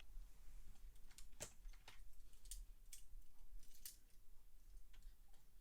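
Faint, scattered clicks and taps of small die-cast toy cars being handled, about half a dozen sharp ones spread over a few seconds.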